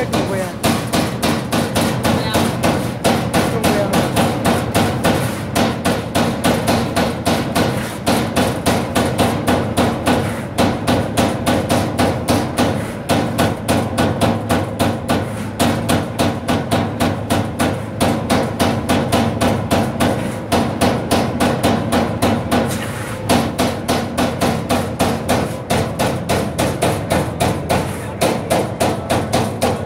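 CNC turret punch press punching holes in sheet metal: a fast, even run of sharp strikes at about four a second, with a few brief pauses.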